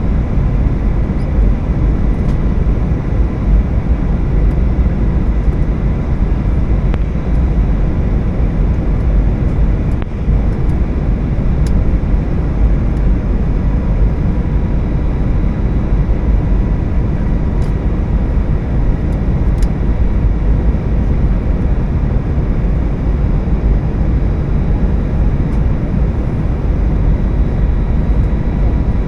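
Steady cabin noise inside an Airbus A320 on approach: a loud, even rumble of engines and airflow with faint steady tones over it.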